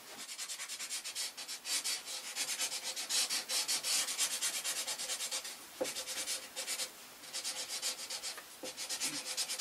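An ink marker pen scrubbed quickly back and forth on a door, filling in tag lettering: rapid rubbing strokes about five a second, with a couple of short breaks.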